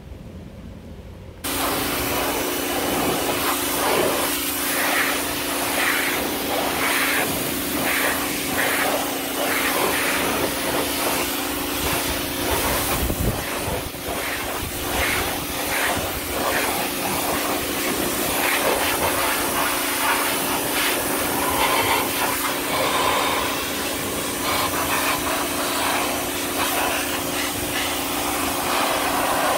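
Giraffe Tools Grand Falls 2200 PSI pressure washer running, its wand spraying a hissing jet of water onto a car wheel and tire, with a steady motor hum underneath. It starts abruptly about a second and a half in.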